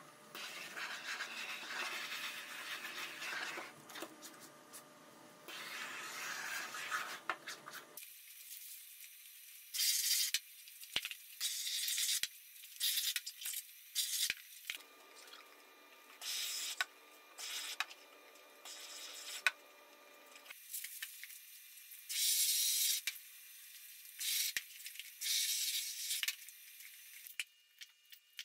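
Aerosol spray can hissing in many short bursts, each about a second long, every second or two through the latter part. Before that comes a stretch of steady rubbing and handling noise on the membrane sheet.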